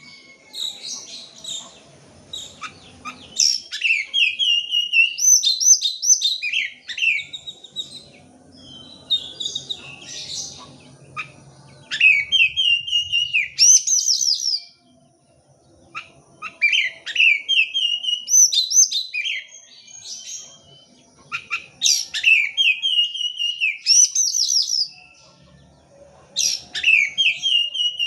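Oriental magpie-robin (kacer) singing: loud, varied phrases of clear whistles and quick chattering notes, repeated in bursts with short pauses and a clear break of about a second and a half midway. It is a 'pancingan' lure song, meant to set off another kacer singing.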